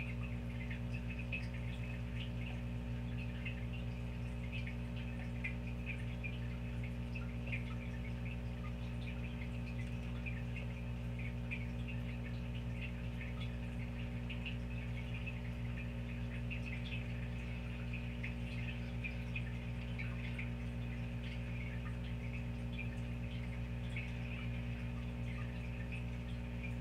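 A steady low hum made of several tones, with faint irregular high-pitched ticks and chirps over it.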